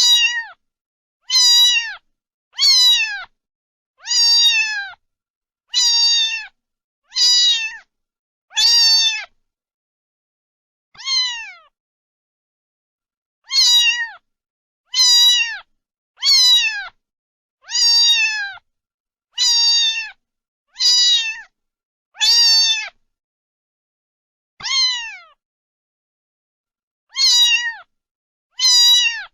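A cat meowing over and over: about eighteen short meows, each dropping in pitch, roughly one every second and a half, with longer pauses near the middle and toward the end.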